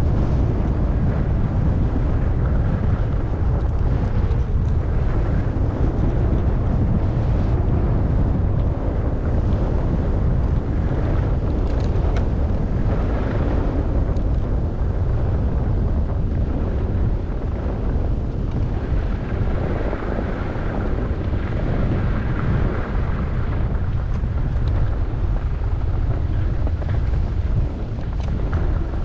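Wind rumbling steadily on the microphone of a camera carried by a skier moving down a run, with the hiss of skis sliding over snow beneath it. The hiss grows louder for a few seconds past the middle.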